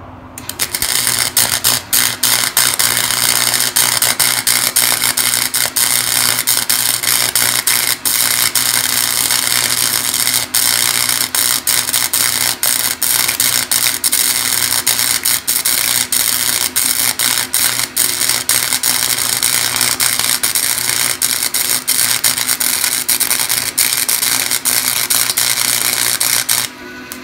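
Cheap Harbor Freight wire-feed welder running a bead on heavy-walled steel pipe and angle iron: a steady crackling sizzle of the arc with brief breaks. It starts about half a second in and stops just before the end. The welds get little penetration into the heavy pipe and serve only as tacks.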